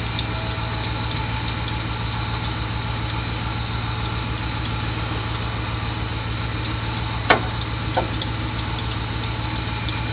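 1995 Dodge Ram 2500 van's 5.2-litre V8 idling steadily with a belt squeal from a serpentine-belt pulley, still squealing with WD-40 sprayed on the outside of the belt, which points to a pulley on the grooved side of the belt. Two brief sharp sounds come about seven and eight seconds in.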